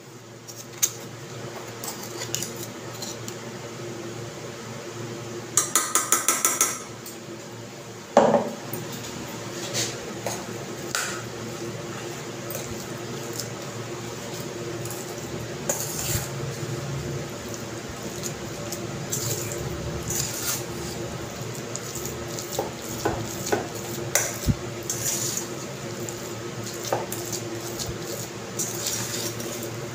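Steel spoon scraping and clinking against a stainless steel bowl, mixing powdered sugar into thick hung curd, with scattered taps throughout. A louder quick rattle of rapid clicks comes about six seconds in, and a sharp clink a couple of seconds later.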